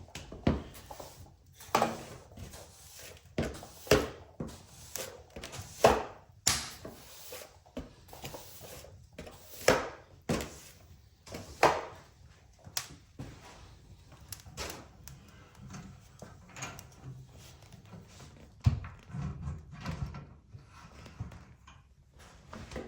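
Irregular knocks and clatters, a few every couple of seconds, like drawers or cupboard doors being opened and shut and things being set down in a small room.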